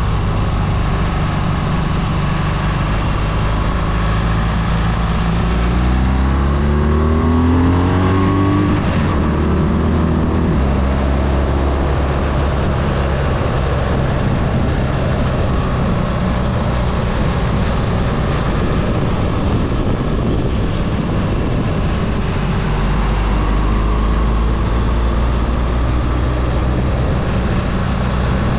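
Vehicle engine pulling uphill on a mountain pass climb. Its pitch rises steadily between about five and nine seconds in as it accelerates, then it runs on steadily.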